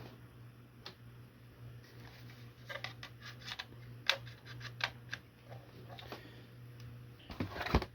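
Scattered clicks and taps of cables and connectors being handled and plugged in, with a denser run of clicks near the end, over a steady low hum.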